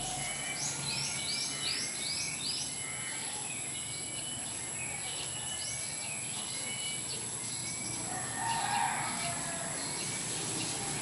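Wild birds chirping: a quick run of about five rising chirps starts just after the opening, with more scattered calls midway. A steady high-pitched tone runs underneath.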